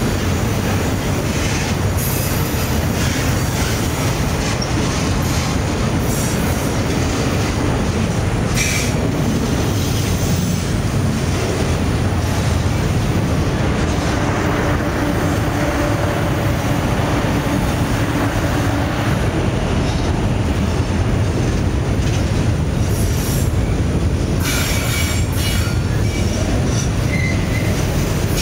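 Freight train's autorack cars rolling past: a steady rumble of steel wheels on rail, with brief high wheel squeals several times, most of them near the end.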